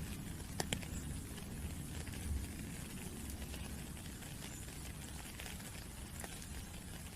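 Rain falling steadily, with scattered raindrops pattering and two sharp drip clicks a little over half a second in.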